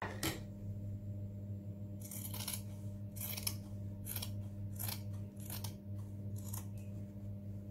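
Large tailor's scissors cutting through cotton fabric folded into four layers: a light knock just after the start, then from about two seconds in a run of crisp snips, roughly one every 0.7 seconds, over a steady low hum.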